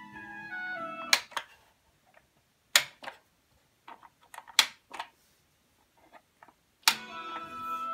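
Pioneer SA-740 integrated amplifier's front-panel pushbutton selectors pressed, each press a sharp click, mostly in quick pairs. The music playing through the amplifier cuts off with the first click about a second in, and comes back with a click near the end as a source is switched back on.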